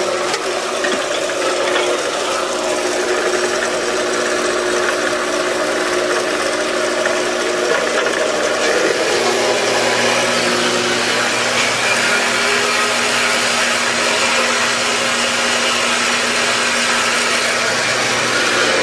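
4x6 horizontal metal-cutting band saw, driven by a treadmill DC motor on a PWM speed controller, running steadily as its blade cuts through a 3/4-inch bar of 1018 steel. The motor holds its speed under the cutting load, and the tone of its hum shifts slightly about halfway through.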